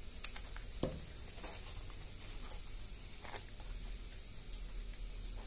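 Faint handling sounds of glitter craft foam (foamy) pieces: a few soft clicks and rubs as the foam is moved and pressed by hand, over a low steady room hum.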